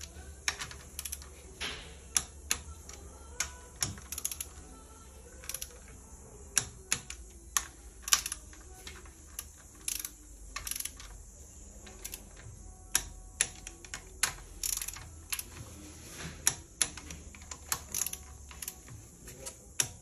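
Ratcheting torque wrench clicking in short, irregular runs of sharp clicks as the timing-chain sprocket bolts are tightened.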